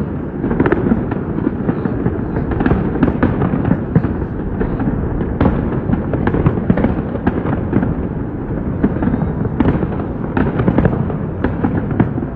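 Fireworks display going off: a dense, continuous run of bangs and crackles, several a second, over a steady low rumble.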